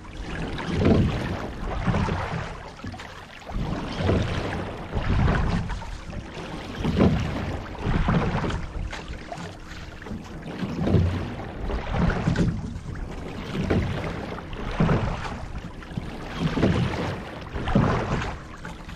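Water rushing and splashing along a rowing shell's hull. It swells and fades in surges about every two seconds with the rowing strokes.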